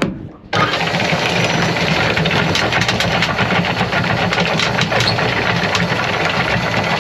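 Electric anchor windlass running, paying out anchor chain, with a steady motor hum and many sharp clicks of chain links passing over the gypsy. It starts abruptly about half a second in.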